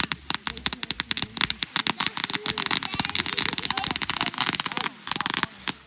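Firecrackers going off in a rapid, dense run of sharp cracks. They thicken into a near-continuous crackle in the middle and stop shortly before the end.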